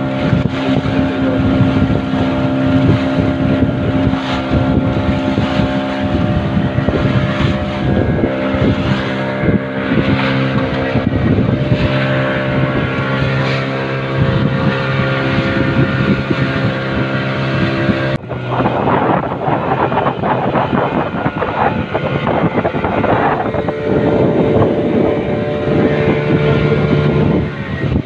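A small fishing boat's engine running steadily under way, with wind and water noise. About two-thirds of the way through the sound breaks off suddenly and goes on with a different steady engine note.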